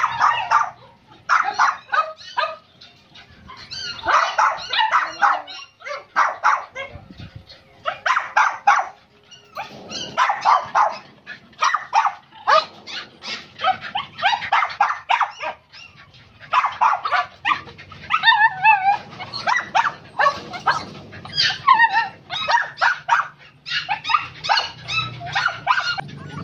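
Dogs barking over and over in bouts of a second or two with short breaks, the barking growing denser in the second half, with a few higher wavering yelps mixed in.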